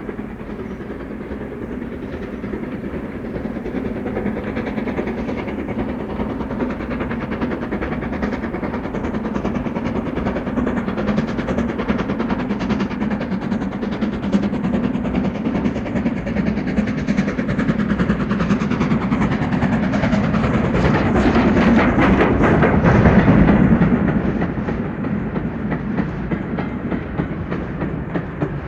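Steam train approaching and passing close by: a steady rumble with wheels clicking over the rail joints builds to a peak about 22 seconds in, drops in pitch as it goes past, then falls away.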